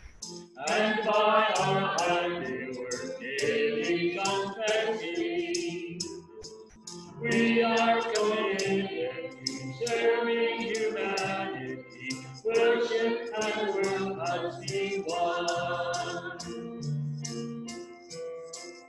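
A hymn sung by several voices in phrases, with music accompanying them and a steady light tick keeping the beat.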